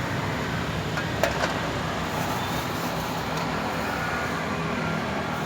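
Steady noise of busy road traffic, with two small clicks about a second and a half in.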